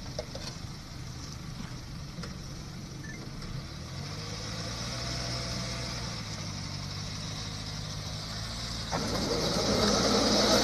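Hyundai Tucson SUV engine running as it tries to climb a dirt incline off a roller ramp; the engine note rises about four seconds in. Near the end a louder rushing noise builds.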